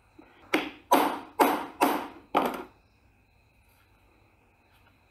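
Claw hammer striking the top of a steel hollow punch, five blows about half a second apart, each with a short ring. The punch is being driven through a stack of upholstery fabric onto a brass plate to cut holes for 12 mm eyelets.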